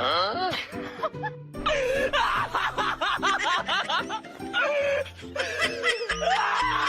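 Background music with repeated bursts of high, wavering laughter over it.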